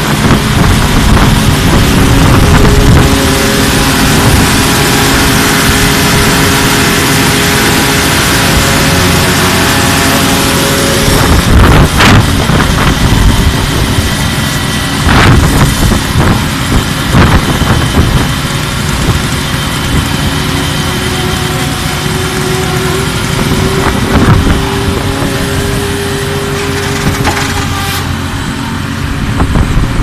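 Concrete-pouring machinery running steadily: the small petrol engine of a flexible-shaft concrete vibrator and a concrete pump truck, with a few sharp knocks midway.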